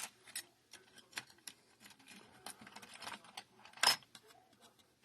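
Small metal buckles and garment fasteners clicking and clinking as they are handled and set down, a scatter of light taps with one louder click about four seconds in.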